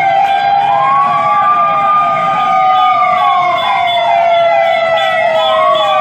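Two sirens sounding together as a coronavirus awareness alert. One is a slow wail that rises about half a second in, holds, sinks after a few seconds and rises again near the end; under it runs a quicker, repeating falling sweep.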